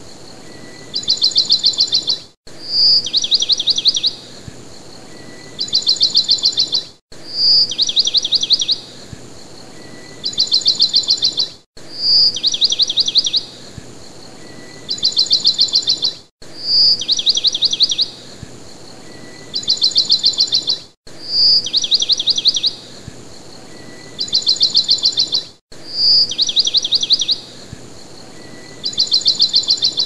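Bird song on a short repeating loop: a single high note, then two rapid trills about a second long each, the whole phrase recurring about every four and a half seconds with a brief gap between repeats. Under it runs faint steady noise.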